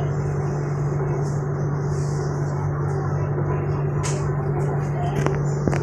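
Siemens Modular Metro electric multiple unit running, heard on board: a steady low hum over even rolling noise, with a few sharp clicks from about four seconds in.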